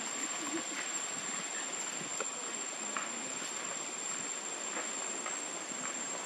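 Steady outdoor ambience: an even hiss with a constant high-pitched whine, broken by faint scattered ticks and rustles.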